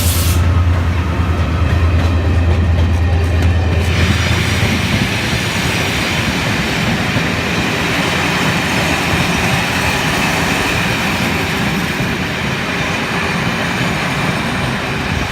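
A locomotive-hauled passenger train, a Class 68 diesel with its coaches, passing close. There is a deep drone for the first four seconds or so, then the steady rushing of wheels rolling on the rails, which eases slightly near the end.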